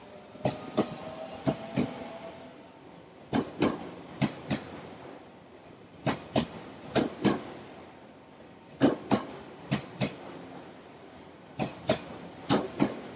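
JR 383 series electric train rolling slowly past, its wheels clicking over a rail joint: two quick double clicks for each car's pair of bogies, repeating about every three seconds.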